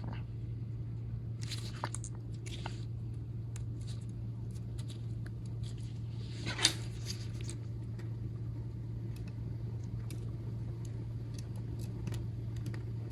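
Faint small clicks and rustles of a phone's screen and parts being handled and fitted by hand, over a steady low hum; one sharper click about halfway through.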